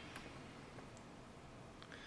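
Near silence: quiet room tone with three faint, brief ticks.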